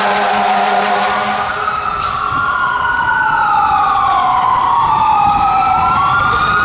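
Fire truck siren wailing, its pitch sweeping slowly up and down. A steady deep horn blast sounds over it for about the first one and a half seconds.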